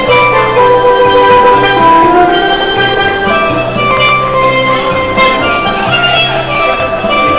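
Tenor steelpan playing a Latin love-song melody over a backing track of bass and drums.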